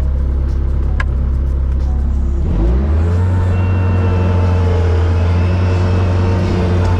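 Engine of a snow-plowing vehicle running steadily, then revving up about two and a half seconds in and holding at a higher speed.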